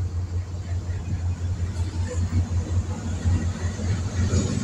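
A motor running steadily with a low, slightly pulsing drone.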